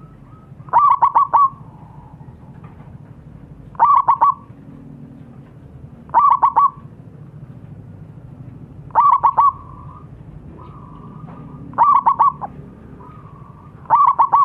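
Zebra dove (perkutut) calling: six loud phrases of quick staccato cooing notes, repeated about every two and a half to three seconds, with fainter, longer cooing between some of them.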